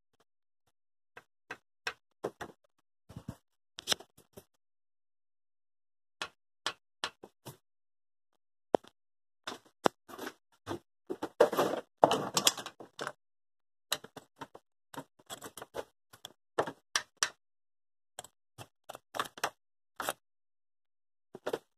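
Handling noise: scattered light clicks and knocks, with a denser run of clatter about ten to thirteen seconds in.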